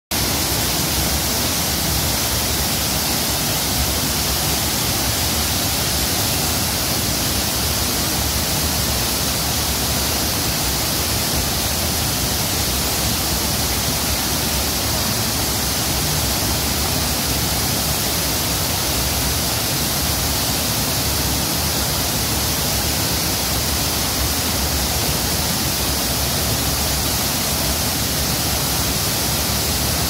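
Waterfall pouring into its pool: a steady, unbroken rush of falling water.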